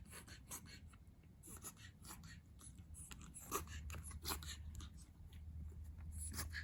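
Faint, irregular clicks and smacks from a long-coat Chihuahua puppy.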